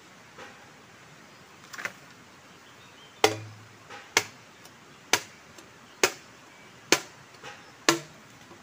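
Machete chopping into a bamboo pole: a couple of light taps, then six sharp strikes about one a second, starting about three seconds in.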